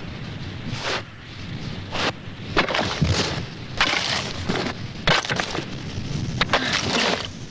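Axes chopping into glacier ice: an irregular run of sharp, cracking strikes about once a second, with the crunch of ice breaking away between blows.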